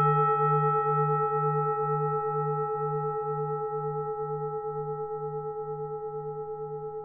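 A mindfulness bell rings out after a single strike and fades slowly, its deep hum wavering about twice a second under clear higher tones.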